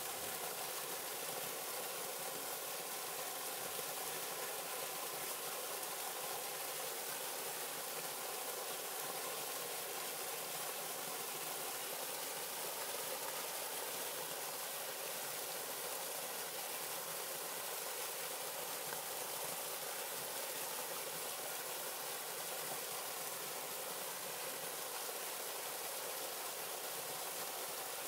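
Small waterfall on a mountain river pouring steadily into a pool: an even, unbroken rush and splash of falling water.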